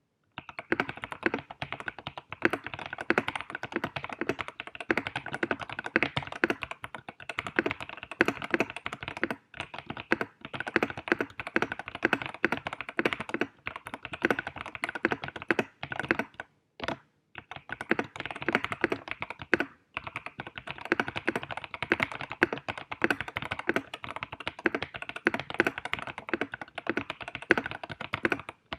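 Fast, continuous typing on a KBDFans D60Lite mechanical keyboard with Tecsee Sapphire V2 switches and GMK Blue Samurai clone keycaps, many keystrokes a second, broken by a few brief pauses.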